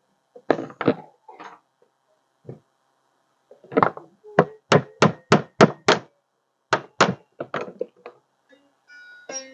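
A small hammer tapping on a wooden beehive frame: a few knocks, then a quick even run of sharp knocks, about three a second. Music with plucked strings starts near the end.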